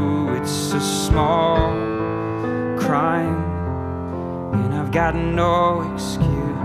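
A man singing a slow, gentle song while accompanying himself on a grand piano, in several sung phrases over held piano chords.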